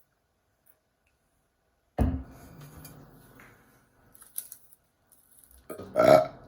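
Two loud burps: a deep one starting suddenly about two seconds in that trails off over a second or more, then a shorter, higher-pitched burp near the end, with a small click between them.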